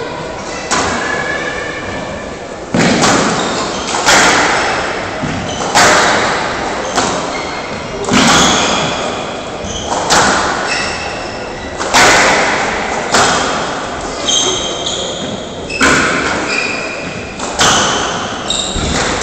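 Squash rally: the ball cracks off the racquets and the walls about every one to two seconds, each hit echoing in a large hall, with short high squeaks of shoes on the court floor between the hits.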